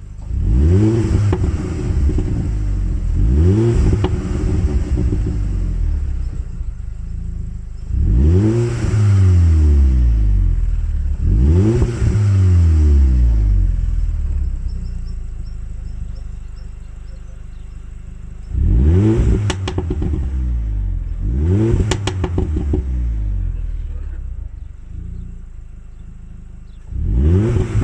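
Audi TTS turbocharged 2.0-litre four-cylinder revved in about seven short blips through the stock exhaust. Each blip drops back to idle with crackles and pops on the overrun from a tuned map, here switched on via the cruise control.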